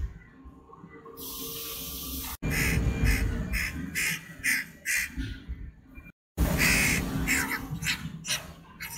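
Crow chick begging for food as it is hand-fed: runs of loud, harsh, quickly repeated squawking calls, several a second, starting a couple of seconds in, with a brief break just after six seconds.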